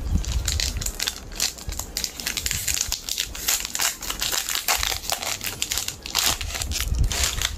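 Foil wrapper of a Pokémon card booster pack crinkling and tearing as it is opened by hand: a dense, continuous crackle of sharp little clicks.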